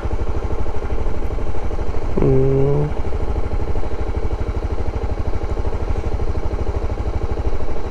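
Motorcycle engine idling with a steady, rapid low pulse while the bike stands still. A brief voiced hum from the rider about two seconds in.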